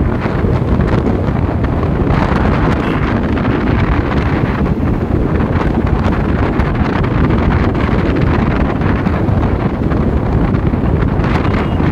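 Wind buffeting the microphone of a moving vehicle: a loud, steady rush heaviest in the low end, with no break.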